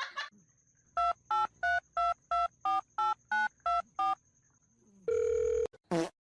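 Telephone keypad dialing tones: ten short two-tone beeps at about three a second, then a half-second lower beep near the end.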